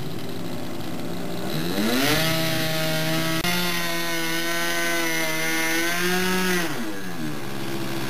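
Sig Kadet LT-40 radio-control model airplane's engine. It idles, revs up to a higher steady buzz about two seconds in, holds there for about four and a half seconds, then drops back to idle as the plane taxis on grass.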